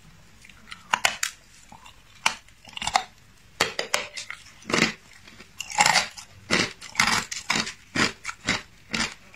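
Hard clear ice being bitten and crunched between the teeth: sharp, irregular cracks, only a few in the first seconds, then coming quickly one after another from about halfway through.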